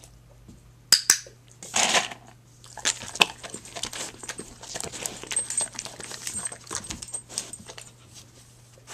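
A large black dog moving about right by the camera on a wooden floor and settling down: two sharp knocks, a loud rustle, then several seconds of close rustling with many small clicks and faint metallic tinkles.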